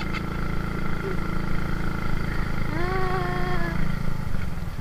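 Motorcycle engine running steadily with wind rumble while riding along a road. A short held pitched call, about a second long, comes in about three seconds in.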